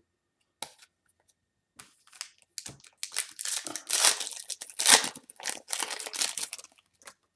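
A foil trading-card pack being torn open and its wrapper crinkled, with a few light handling clicks before it. The tearing and crinkling come in a dense run from about three seconds in until shortly before the end, loudest around the middle of that run.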